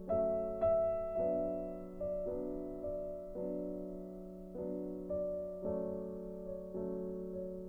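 Background piano music: a slow melody, each note starting clearly and fading before the next, roughly one to two notes a second.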